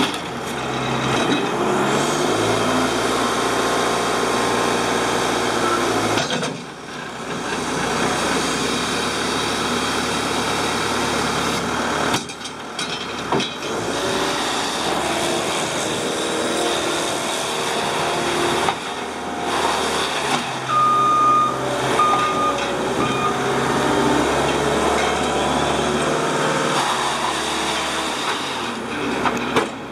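Caterpillar 279C2 compact track loader's diesel engine running hard as the machine drives, its pitch rising near the start and easing and rising again several times. A backup alarm beeps three times about two-thirds of the way through.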